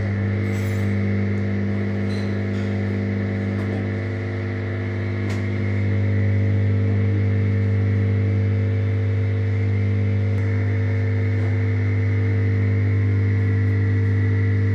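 LG washing machine running with a steady electric hum, working again after its faulty water level sensor was replaced. The hum gets a little louder about six seconds in.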